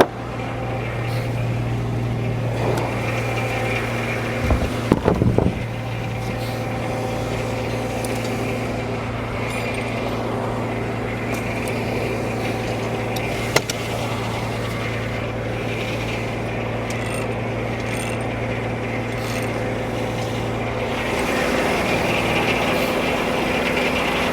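Frick No. 1 sawmill running with a steady hum, a short clatter of knocks about five seconds in and a single sharp click later. Near the end the hum changes and the sound grows louder and noisier.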